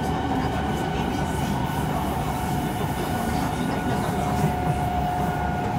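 Kawasaki C151 metro train running at steady speed, heard from on board: rumble of wheels and car body with a steady traction-motor whine.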